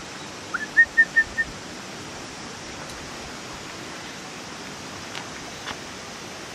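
A quick run of five short, high whistled notes, the first rising and the rest level, about half a second in, over a steady background hiss.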